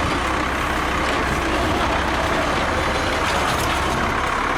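Steady truck engine running sound, an even rumbling noise with a low hum, like a heavy truck engine at idle.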